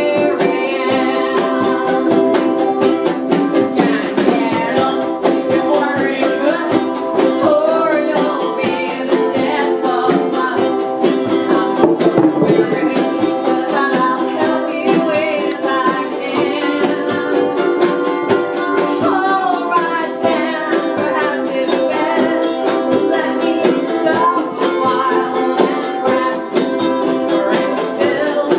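A group strumming string instruments with voices singing along: a live acoustic song with a steady strummed rhythm.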